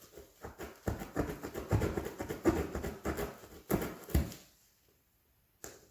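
Tire repair file (reamer) being forced up and down in a screw puncture in a tire to enlarge the hole for a plug: a run of irregular rasping, scraping strokes that stops about four and a half seconds in.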